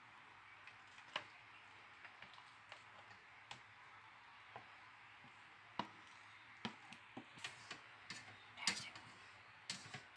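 Wooden spoon knocking and scraping against a ceramic plate and a metal pot as chicken curry is spooned onto rice: scattered light clicks, more frequent in the second half.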